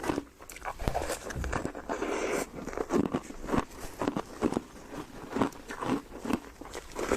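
Close-miked biting and chewing of frozen snow foam: a string of crisp, irregular crunches, about two to three a second.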